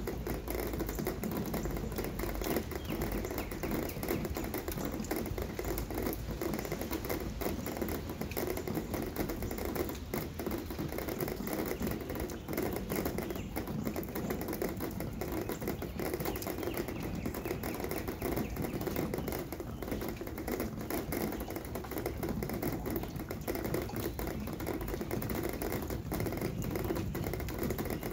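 Steady rain: a dense, even patter of many separate drops landing close by.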